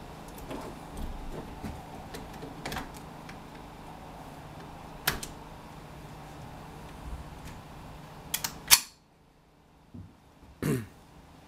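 Ruger 10/22 .22 rifle being handled as its curved magazine is loaded: scattered small metallic clicks and clatter, then a sharp, louder clack about three-quarters of the way through.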